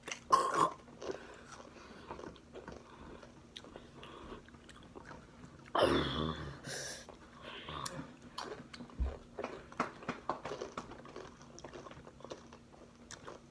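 Crunching and chewing of Takis, rolled corn tortilla chips, close to the microphone: many small crisp crackles throughout. There are two louder noisy bursts, one just after the start and one about six seconds in.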